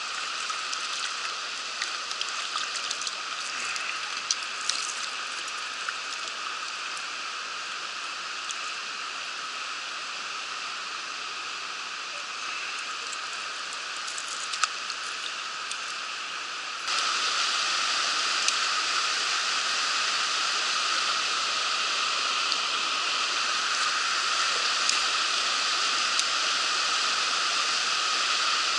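Mountain stream water rushing steadily over rocks, with a few light ticks in the first seconds. About 17 seconds in the water suddenly becomes louder and stays so.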